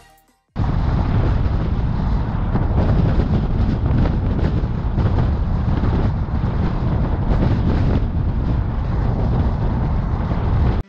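Wind buffeting the microphone of a camera mounted on the outside of a Ford F-150 pickup driving at road speed, a steady low rush with the truck's road noise under it. It cuts in abruptly about half a second in.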